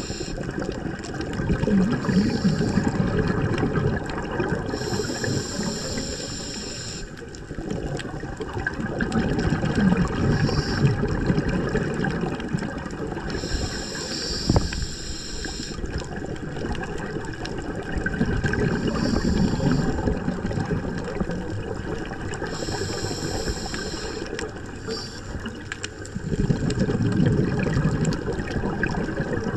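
Scuba diver breathing through a regulator underwater: a hiss on each inhale, then a rush of exhaled bubbles, repeating about every eight to nine seconds.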